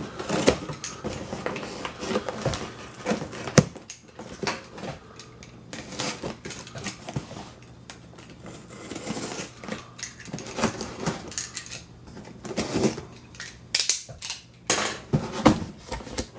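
Cardboard shipping box being opened and handled by hand: an irregular run of scrapes, rustles and sharp clicks.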